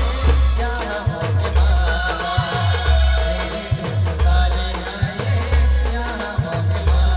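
Adivasi band playing an instrumental passage: a melody line over deep bass drum beats in a steady rhythm, with a quick rattling, shaker-like percussion on top.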